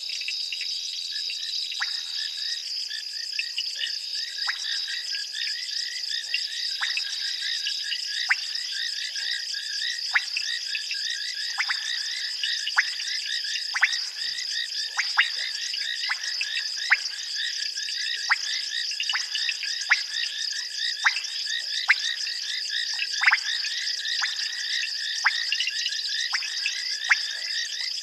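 Night chorus of frogs and insects: a steady high-pitched trilling, with short sharp frog calls about once a second that come a little more often toward the end.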